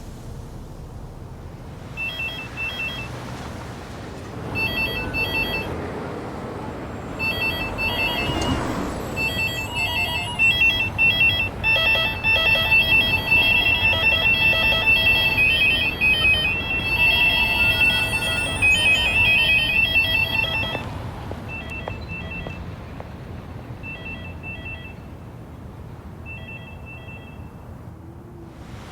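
Public payphones ringing in short repeated electronic tone pulses. More and more phones join in until about ten seconds in, when many ring over each other at once. Near the end the rings thin out to a single phone ringing.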